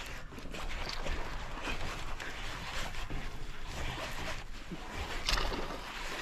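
Water sloshing against the hull of a small fibreglass fishing boat, with a few brief knocks.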